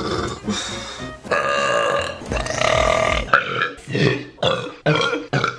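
A woman belching: long drawn-out pitched belches in the first half, then a quick string of short burps.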